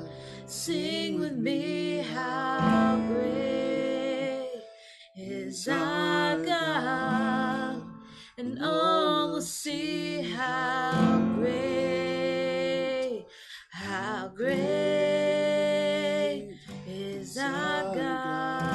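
Contemporary worship song: an acoustic guitar strummed under a woman and a man singing long, held phrases, with brief breaks between lines.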